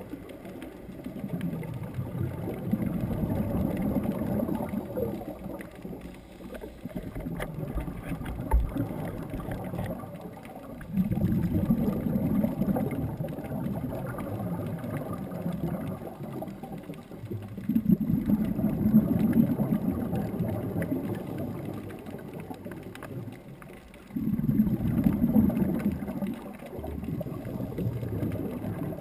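Scuba regulator breathing heard underwater: exhaled bubbles rumble in stretches of a few seconds, about every six or seven seconds, with quieter gaps between breaths, muffled through the sealed camera housing.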